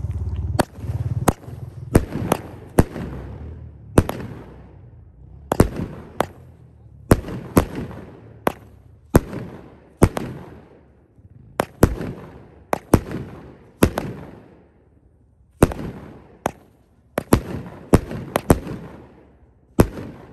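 A 200-gram consumer firework cake firing its shots: about thirty sharp bangs, each with a fading echo, coming at uneven intervals and sometimes in quick pairs or runs.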